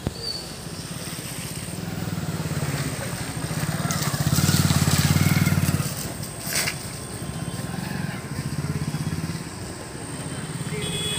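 Motorcycle engine running steadily, swelling loudest as a motorcycle passes close by about halfway through, with a short sharp knock just after.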